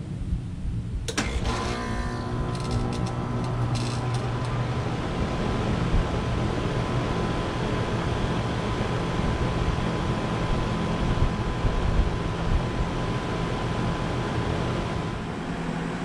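Rheem RP15 3.5-ton heat pump outdoor unit coming on in heat mode: a sharp click about a second in, then the scroll compressor and outdoor fan running with a steady hum and fan noise.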